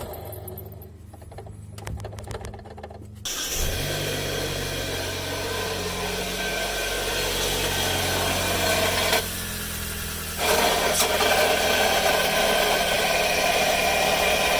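Car engine running with a damaged alternator bearing, the sound of a failing bearing in the belt-driven alternator. A quieter stretch with a steady low hum gives way suddenly about three seconds in to a much louder, steady running noise, which dips briefly near the ten-second mark.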